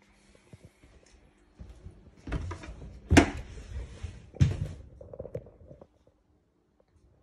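Rustling handling noise with two louder thuds, about three seconds in and again about a second later, as a hand-held phone is carried through a doorway.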